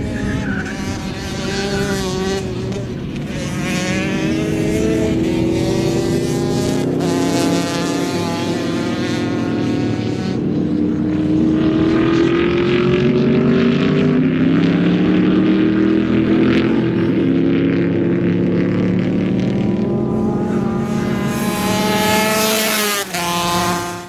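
A 60cc shifter kart's two-stroke engine running hard around a circuit. The engine note climbs as the kart accelerates and drops as it slows for corners, over and over, with a sharp climb and a sudden drop near the end.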